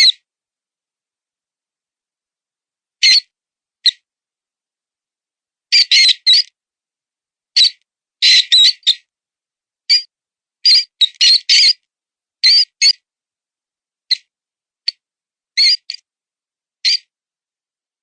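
Mouse distress squeaks, the wounded-mouse sound of a predator call. Short high squeaks come singly or in quick clusters every second or two, at an uneven pace, with silence between.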